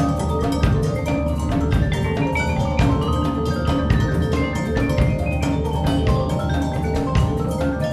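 Percussion ensemble playing: marimbas and vibraphones in quick, steady repeated mallet patterns over a sustained low bass, the struck notes dense and continuous.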